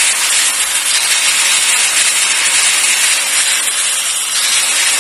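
Skil angle grinder running unloaded, held in the air: a loud, steady rushing hiss from the motor.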